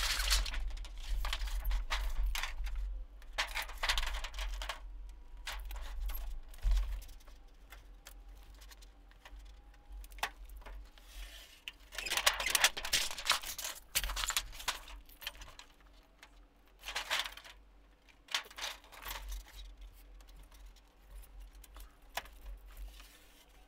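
Sheet of trim coil being cut into strips on a Tapco sheet-metal brake: irregular bursts of metallic rattling and scraping as the sheet is handled, clamped and slit along the brake's rail, with quieter pauses between.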